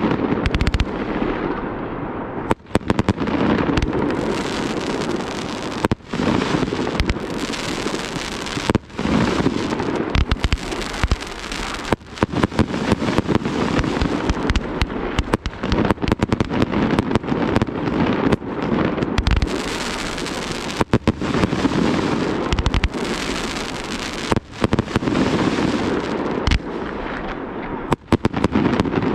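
Aerial fireworks, rockets and shell bursts, going off without a break: a dense crackling din packed with sharp bangs close together, with only short lulls now and then.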